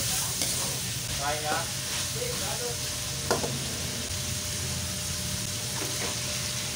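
Diced meat and onions sizzling in a wok as a spatula stirs and scrapes through them, with a sharp knock of the spatula against the pan about three seconds in.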